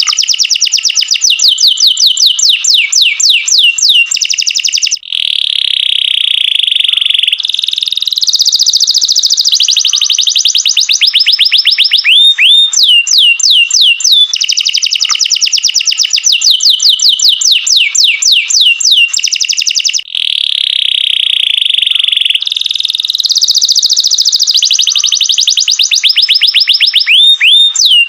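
Domestic canary singing a long song of rapid trills: fast runs of repeated sweeping notes alternating with buzzy rolls. The same sequence of phrases comes round again about every 15 seconds.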